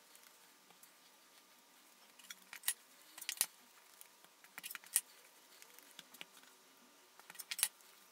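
A metal bench scraper clicking and clacking against a silicone pastry mat as dough is cut into portions. The sharp clicks come in four short clusters, the loudest near the end.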